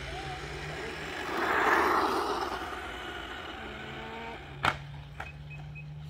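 Battery-powered remote-control car driving past on asphalt, its motor and tyres swelling to a peak about two seconds in and then fading away. A sharp click comes near the end.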